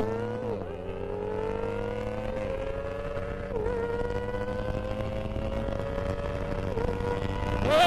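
Kawasaki Ninja ZX-25R's 250 cc inline-four engine at high revs under hard acceleration, its pitch climbing slowly, with a brief dip at each gear change, four in all.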